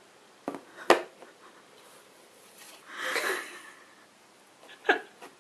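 Coin clicking down on a cardboard box, two sharp taps within the first second, then a soft scraping rustle about three seconds in as a cat's paw reaches out of the box's slot for the coin, and another click near the end.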